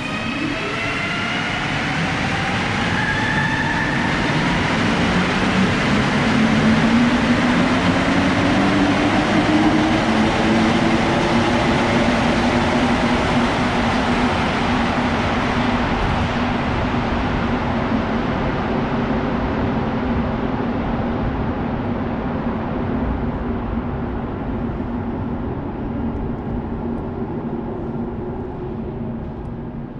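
Rubber-tyred Montreal metro train pulling out: the motors whine upward in pitch as it gathers speed, then settle into a steady hum. It grows loudest about seven to ten seconds in, then slowly fades.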